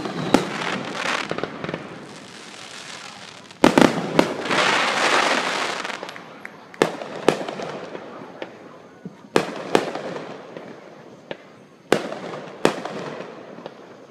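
Aerial fireworks shells bursting in a display: a run of sharp booms, the loudest pair about four seconds in followed by a couple of seconds of rushing hiss, then bangs coming in pairs every two or three seconds.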